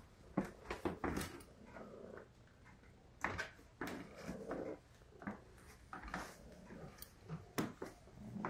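A hungry Russian Blue cat meowing several times, mixed with a few short knocks of steps on a wooden floor.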